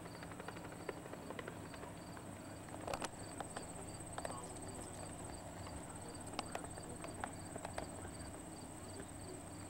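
Faint open-air ambience: insects chirping in an even rhythm about three times a second over a continuous high trill, with a few scattered light clicks.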